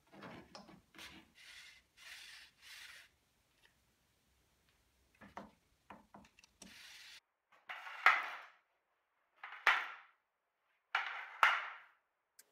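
Wooden tripod leg parts being handled: the lower leg section sliding in the upper leg's guide, wood rubbing on wood. Faint scuffs and a few light clicks come first, then three louder scraping strokes near the end.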